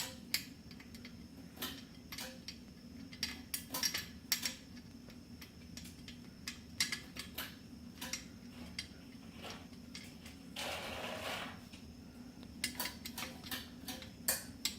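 Scattered small metallic clicks and clinks of screws and ceiling-fan parts being handled and fitted, over a low steady hum, with a brief rustle about eleven seconds in.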